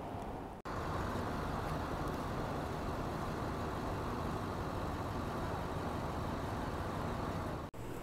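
Steady engine noise of a close-by delivery truck, with street traffic around it. It breaks off for an instant about half a second in and again near the end.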